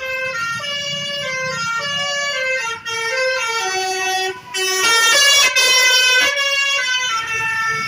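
Musical vehicle horn of the Indonesian telolet/basuri kind, playing a tune of held notes that step up and down in pitch, louder about five seconds in.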